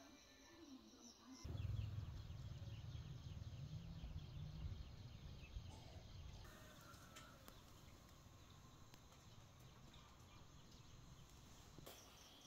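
Faint rural outdoor ambience with insects chirping. A low rumble comes in about a second and a half in and fades over the next few seconds.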